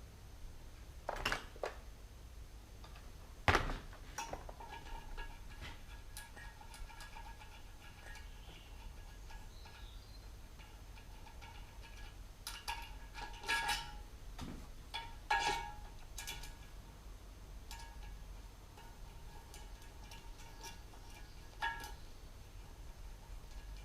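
Metal parts and tools clinking and knocking at irregular intervals, several strikes ringing briefly.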